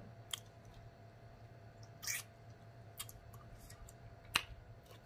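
Quiet close-up chewing of king crab meat: a few short wet mouth clicks and smacks, the loudest about two seconds in and just after four seconds in.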